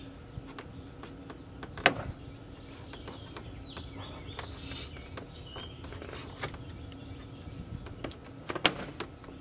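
Scattered clicks and knocks from hand work on a car door's plastic trim panel: one sharp click about two seconds in and another near the end, with faint squeaks between, over a steady low hum.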